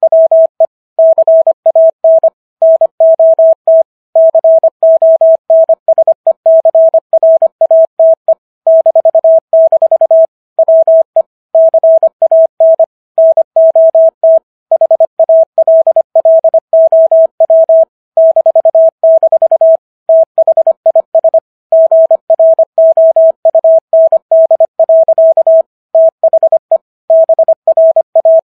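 Morse code sent at 25 words per minute as a single steady beep tone, keyed on and off in rapid dots and dashes, with short gaps between words.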